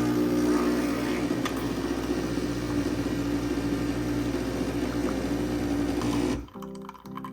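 A small electric motor or appliance runs with a steady hum, then switches off abruptly about six seconds in.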